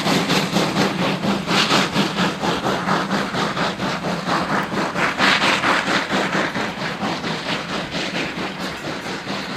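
WWII Kriegslok (class 52 2-10-0) steam locomotive working hard with a loaded coal train, its exhaust beating in a fast, even rhythm that grows a little fainter near the end.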